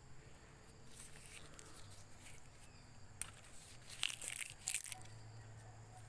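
Leaves and dry vegetation rustling and crackling in a few short bursts, loudest about four to five seconds in, over a faint steady drone of insects.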